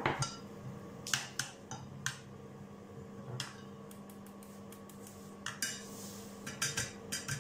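Wire whisk and metal spoon clinking against the side of a stainless steel saucepan while béchamel sauce is whisked: irregular light clinks and taps, bunched about a second in and again in the last couple of seconds.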